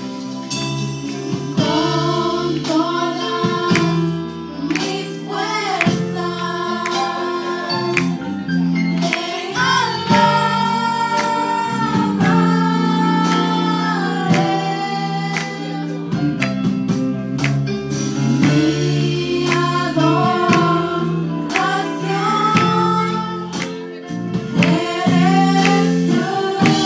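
Live gospel praise band playing a Spanish-language worship song: a woman singing the lead with backing singers, over electric guitar and a drum kit.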